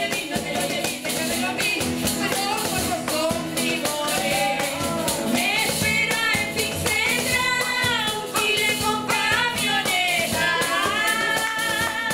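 Live Chilean cueca: two women singing together over a strummed acoustic guitar, with a hand tambourine struck and shaken in time.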